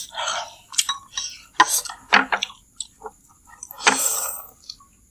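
A metal spoon clinks and scrapes against a ceramic noodle bowl, with chopsticks tapping, in a series of sharp clicks. There is a slurp of noodles at the start, and a longer, louder slurp about four seconds in.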